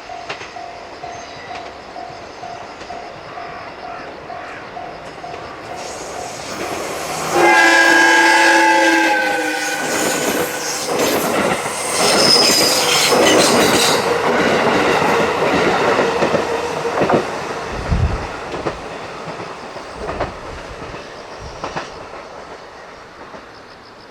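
Level-crossing warning bell ringing about twice a second, then a JR West 221 series six-car electric train sounds its horn for about two seconds, about seven seconds in. The train then passes through the crossing with loud wheel and rail-joint clatter and a few low thumps, fading near the end.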